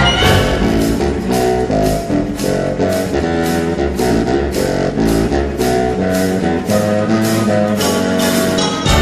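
Contrabassoon and orchestra playing a rhythmic, jazz-rock-flavoured passage, low sustained notes over a steady percussion beat of about two and a half strikes a second.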